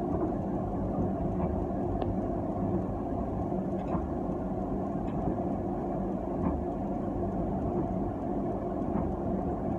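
Tram running along the track, heard from inside the driver's cab: a steady rumble of wheels on rails and motor, with a few faint clicks.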